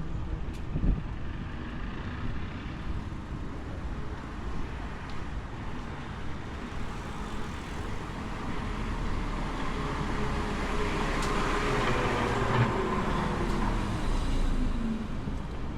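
Street traffic noise with a short knock about a second in; a vehicle then passes close, building up over several seconds and fading with a falling pitch near the end.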